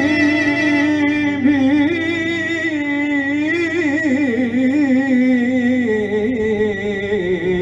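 A man sings a slow, ornamented Greek folk melody over electronic keyboard accompaniment; the clarinet rests.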